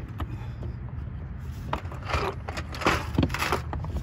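Scraping and clicking of a loose fog light assembly being handled, with a cluster of short sharp clicks from about halfway in, over a steady low rumble.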